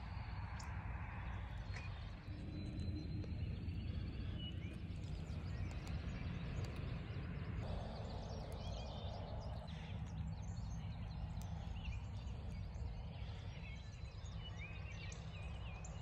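Quiet rural outdoor ambience: a steady low rumble with songbirds chirping faintly now and then, a little more busily near the end.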